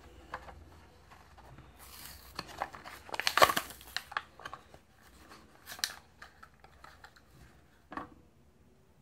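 Hot Wheels blister pack being torn open by hand: the clear plastic bubble and cardboard backing crackle and crinkle in a run of sharp clicks, loudest about three and a half seconds in. A light knock near the end as the empty packaging is set down on the table.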